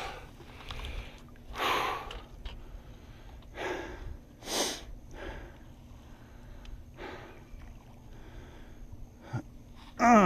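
A person breathing hard, with several loud, short exhales or sniffs a second or two apart, and a short falling groan near the end.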